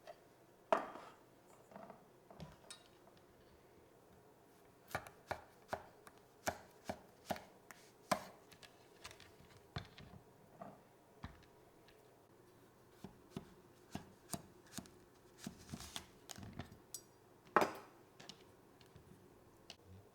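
Kitchen knife chopping food on a cutting board. It comes in runs of separate, evenly spaced strokes, about two or three a second, with a few louder knocks.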